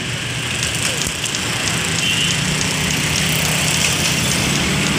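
Diesel locomotive engine running steadily at a distance, a low hum under a constant hiss.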